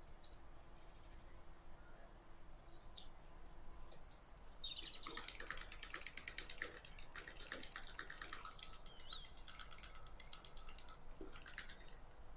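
A tiny wire whisk beating pancake batter in a small glass cup, making rapid light clinks and ticks against the glass. The whisking starts about four and a half seconds in and stops near the end.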